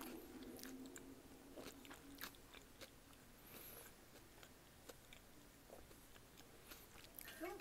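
Faint close-miked chewing and crunching of food, with scattered sharp bites and mouth clicks.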